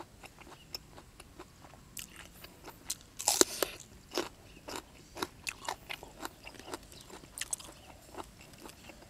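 Close-miked chewing of a mouthful of raw beef and fresh herbs: wet, crunchy mouth clicks at irregular intervals, loudest about three and a half seconds in.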